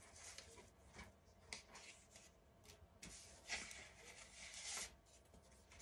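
Near silence with faint rustling and a few light taps, from paper and sticker sheets being handled on a desk; the rustle is a little stronger about three seconds in.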